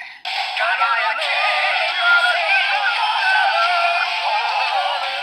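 Small built-in speaker of a DX Hyper Muteki Gashat toy playing its electronic sung theme with backing music, thin and without bass; it breaks off briefly at the very start, then plays on.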